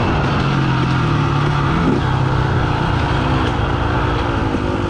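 KTM dirt bike engine running at steady trail-riding revs, dipping slightly in pitch about two seconds in.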